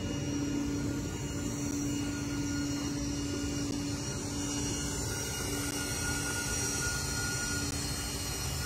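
Hyperion XP-1 hydrogen fuel-cell electric car running: a steady airy whir with a constant low hum.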